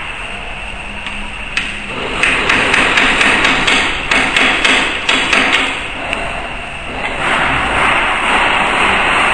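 Hammer tapping metal to seat the dies in the die table of a ZP9 rotary tablet press: a run of quick, sharp metal taps, about four a second, lasting some three seconds.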